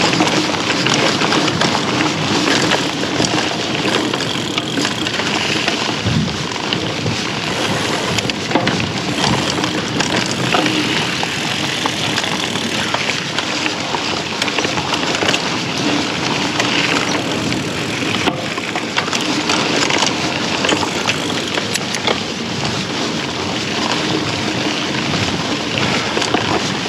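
Klein Attitude mountain bike riding singletrack: tyres rolling over the dirt trail, with rattles and clicks from the bike and wind on the microphone.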